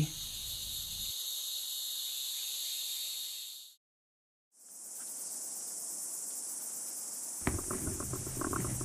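Crickets chirring in a steady chorus. The chorus cuts out for about a second midway, then fades back in, and a low rumble joins near the end.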